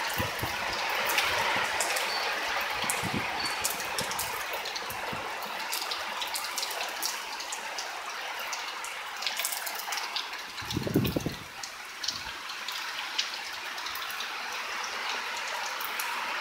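Heavy wind-driven rain of a severe thunderstorm: a steady hiss with scattered close drips and splatters. A brief low thump comes about eleven seconds in.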